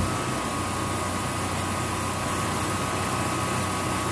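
Early-generation Generac home standby generator's engine running steadily just after starting, with a steady high whine alongside. It has started and seems to work.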